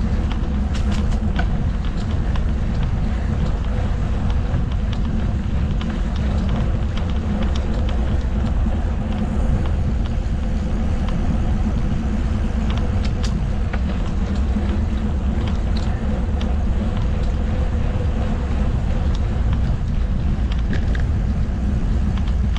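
Riding noise from a Eurobike G4 mountain bike in motion: a steady low rumble of wind on the microphone and tyres rolling, with scattered small clicks and rattles.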